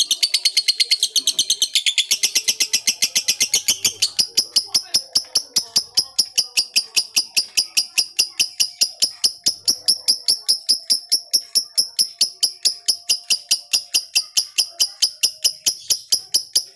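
A rapid, even train of high-pitched chirps, about five a second, with faint voices underneath.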